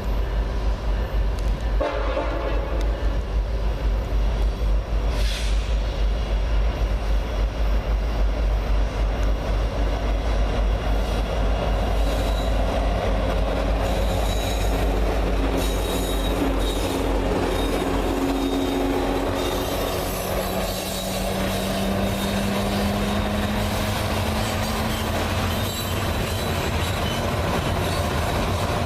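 BNSF EMD SD70ACe diesel-electric locomotive leading a train past, sounding its horn, with the rail cars rolling and clacking over the rail joints and some wheel squeal.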